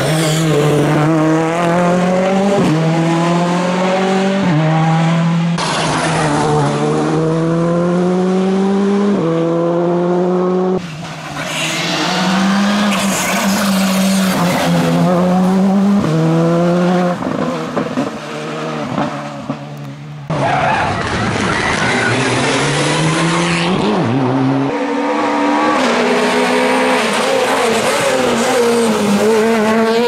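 Rally cars, four-cylinder R5 machines such as a Ford Fiesta R5 and a Škoda Fabia R5, driven flat out one after another: each engine revs up through the gears, the pitch climbing and then dropping at every upshift, with tyres squealing through the bends.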